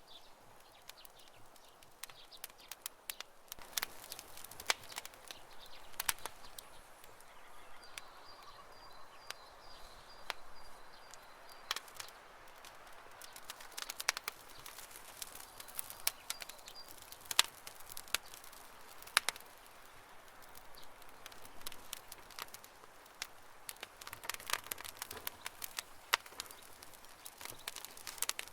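Wood fire crackling, with frequent sharp pops and snaps over a soft hiss. A faint high, pulsing trill runs behind it for several seconds about a third of the way in.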